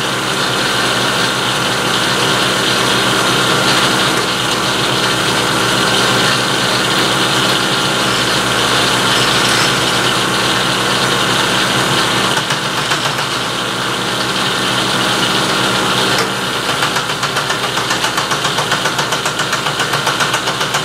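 Vertical milling machine running, its end mill cutting along the edge of a quarter-inch hot-rolled steel plate: a steady motor hum under the even noise of the cut. About three-quarters of the way through, the sound begins to pulse rhythmically.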